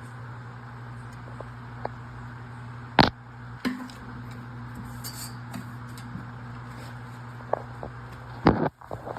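Knocks and light clicks of wooden and metal bar-table parts being handled, one sharp loud knock about three seconds in and another near the end, over a steady low hum.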